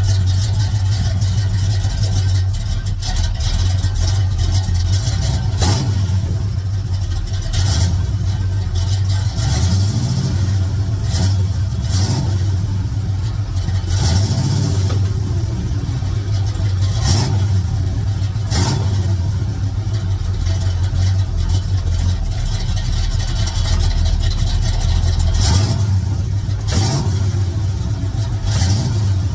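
Pontiac Firebird Trans Am running and driving, a steady low drone from the drivetrain with pitch rising and falling now and then and scattered short knocks. These are the rear-end noises that the owner takes for a differential needing a rebuild.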